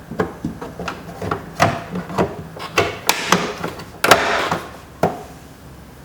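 A quick, irregular series of clicks and knocks from Phillips screws being driven into a car's interior door panel, with a louder scraping rattle for about half a second around four seconds in.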